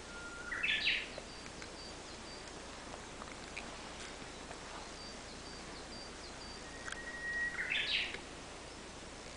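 A sleeping person snoring: two snores, one at the start and one about seven seconds in, each a thin held whistle that breaks into a short rising rasp.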